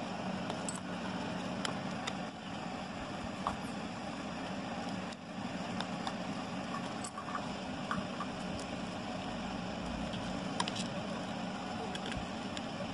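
A steady low hum over a constant background noise, with a few faint light ticks and taps as small paper toy pieces are handled.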